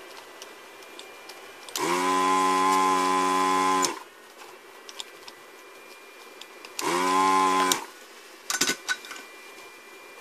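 Electric vacuum desoldering gun's pump buzzing in two bursts, about two seconds and then about one second, as it sucks solder off an inverter board's pins. A few short clicks follow near the end.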